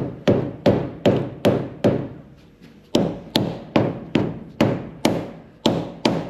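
Rubber hammer striking the cylinder head of a 1927 Dodge Brothers four-cylinder engine in a steady run of blows, about two to three a second, with a brief pause about two and a half seconds in. The blows are meant to break a stuck cylinder head loose from its gasket and studs.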